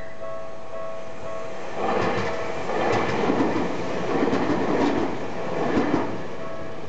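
Tokyu Ikegami Line electric train passing over the level crossing from about two seconds in until about six seconds in, wheels clattering over the rail joints. The crossing's warning bell rings in a steady repeating pattern before and after the train.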